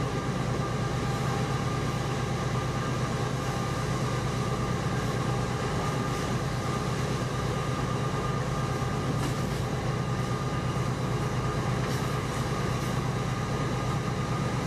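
Steady running noise inside a moving locomotive's cab: a constant low hum with a steady whine above it, and a few faint clicks about nine and twelve seconds in.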